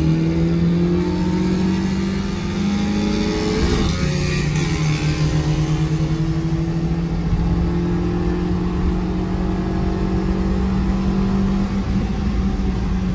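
Car engine heard from inside the cabin, accelerating hard at full throttle during a timed acceleration run: the revs climb, drop once with a gear change about four seconds in, then climb again more slowly.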